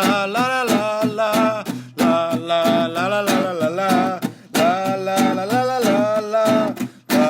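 Music: a voice singing long, wavering held notes over a strummed acoustic guitar, with brief pauses between phrases.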